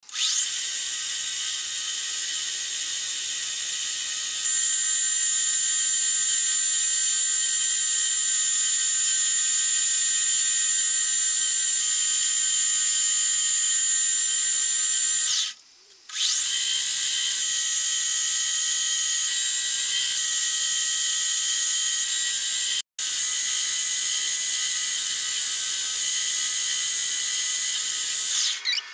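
Metal lathe running, its spindle turning a metal bar as a carbide tool cuts it: a steady high-pitched whine. The sound breaks off briefly about halfway and again near the end.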